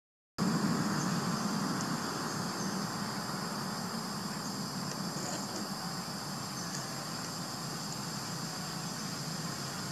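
Steady outdoor ambience of insects droning at one high pitch, with a low steady rumble underneath. It cuts in after a moment of silence at the very start.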